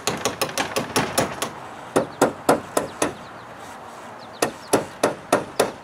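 Hammer blows, struck quickly in three short runs with brief pauses between.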